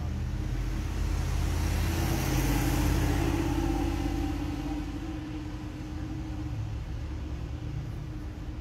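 A car drives past on the street, its road noise swelling to a peak about three seconds in and then fading away, over a steady low hum.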